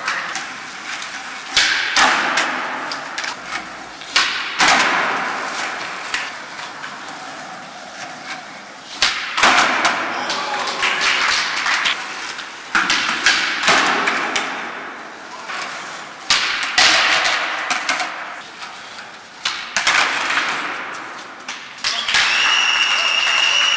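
Skateboards on a concrete floor in an echoing underground car park: wheels rolling, tails popping, and boards slapping down and clattering during flatground flip tricks, about a dozen sharp impacts, each ringing on in the reverberation. Near the end a high steady whistle sounds for about two seconds.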